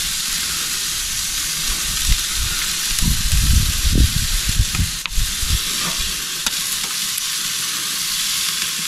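Chicken sizzling on a charcoal grill as barbecue sauce is squeezed onto it and brushed over it: a steady hiss, with a few low bumps around the middle.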